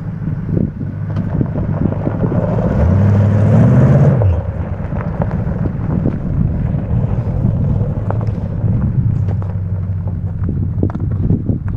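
1972 International Scout II's engine running as the truck drives by on dirt and gravel, swelling and rising in pitch for about a second and a half around three seconds in, then dropping back to a steady run.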